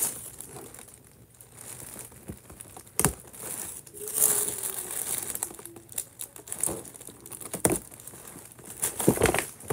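Paper gift bag and its wrapping crinkling and rustling as it is opened, with a few sharp clicks.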